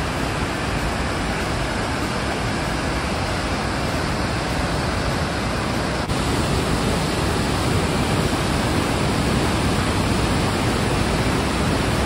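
Steady rushing of a waterfall and white-water rapids, an even noise with no pauses, a little louder from about halfway.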